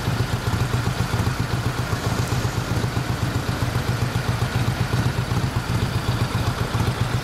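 Yamaha XV1700AS Road Star's big V-twin engine idling steadily with an even, lumpy beat.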